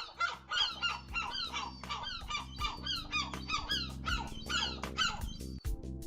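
Flock of seagulls calling together, short harsh calls falling in pitch, many overlapping in quick succession, over background music with steady low held notes.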